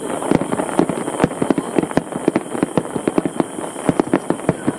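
Aerial fireworks going off in quick, irregular succession, several sharp bangs and pops a second.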